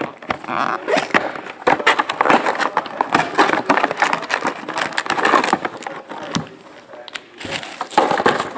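Cardboard trading-card hobby box being opened by hand and its foil-wrapped card packs pulled out and stacked: a dense run of rustling, crinkling and clicks from cardboard and foil, easing off for a second or so near the end.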